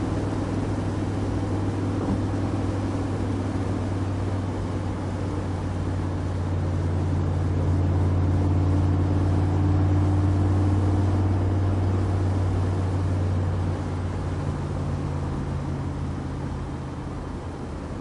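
Backdraft RT3 roadster's 427R crate V8 running steadily while driving. The drone grows louder through the middle, then steps down about three-quarters of the way through and eases off.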